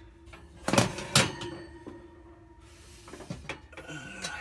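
Two sharp clicks about half a second apart near the start, then a few fainter taps near the end: a screwdriver prying at the spring clips that hold an oven's light socket.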